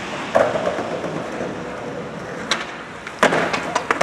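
Skateboard wheels rolling on pavement, a sharp crack of the tail popping for a switch 360 flip, then a loud slam as board and rider come down about three seconds in. The wooden deck clatters several times as it skids away: a bailed landing.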